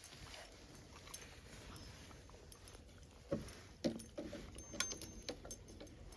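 Small dog eating its breakfast: scattered small clicks and crunches, with a cluster of louder knocks in the middle.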